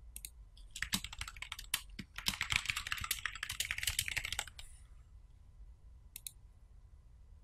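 Typing on a computer keyboard: a quick run of keystrokes for about four seconds, then two short clicks about six seconds in.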